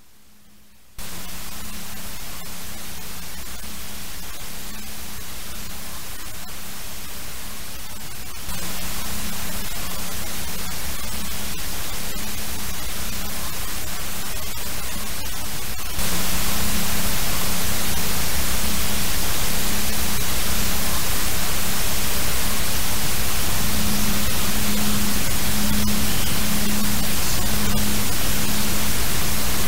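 Steady static hiss with a low electrical hum. It starts abruptly about a second in and gets louder in two sudden steps, about a third of the way through and again about halfway.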